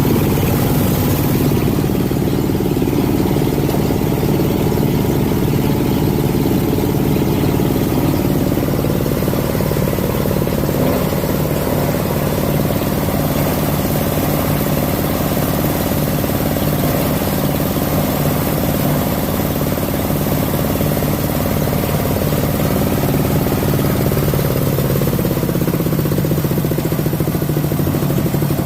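Grinding machine for cocopeat and oil palm empty fruit bunches (Jumbo Type-SM100) running steadily, a constant engine-like drone.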